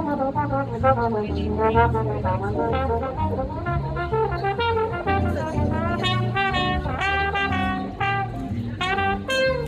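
Live jazz: a trombone plays a moving melody line over a plucked upright bass.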